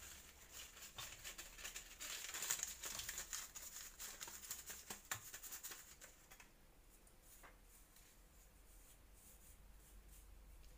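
Faint crackling rustle of a paper sachet of baking powder being shaken out into a fine metal sieve, with small ticks and taps. It dies down after about six seconds.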